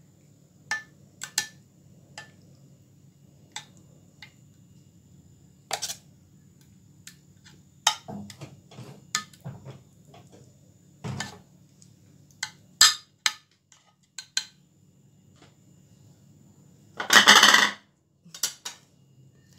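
Metal spoon clinking and scraping against a glass baking dish while spreading béchamel sauce: scattered light taps and knocks, with one longer, louder scrape near the end.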